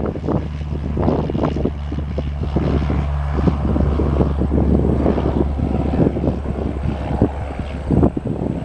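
Cessna 172R Skyhawk's four-cylinder Lycoming engine and propeller at takeoff power as the plane rolls and lifts off. It is a steady low drone that weakens near the end as the plane climbs away, with gusty wind buffeting the microphone throughout.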